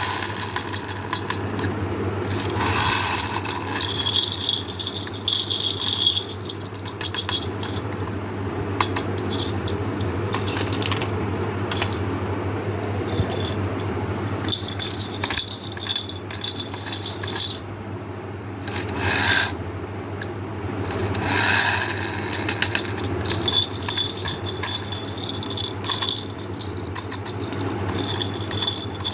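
Small hard candies pouring and rattling against a plastic container in repeated spells of dense clicking, over a steady low hum.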